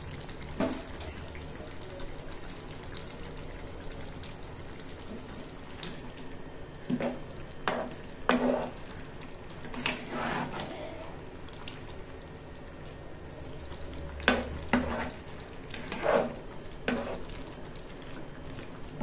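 Fish curry simmering in a non-stick pan with a low steady sizzle, while a spatula stirs through it in short strokes every second or two.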